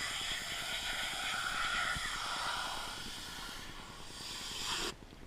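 Pressure washer spray hissing steadily, then cutting off suddenly near the end as the spray stops.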